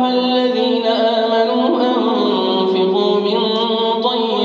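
A man's voice chanting Quran recitation in a slow, melodic tajweed style, holding long notes with gentle ornamental turns of pitch.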